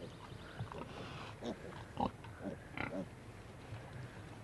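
Pigs, a sow and her young piglets, giving short grunts, several scattered calls about half a second to a second apart.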